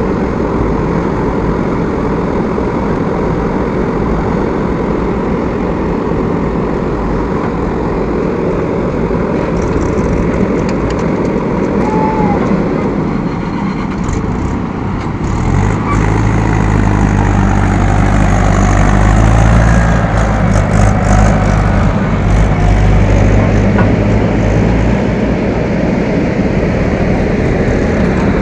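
Diesel engines of JCB backhoe loaders and a tractor running under work. About halfway through, a deeper engine note grows louder for roughly ten seconds as one machine works harder, then eases off.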